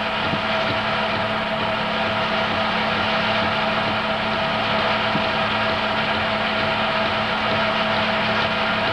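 Home-movie film projector running: a steady mechanical whirr with a constant hum.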